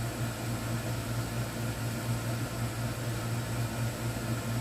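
Air conditioner running, a steady hum over an even hiss with no change in it.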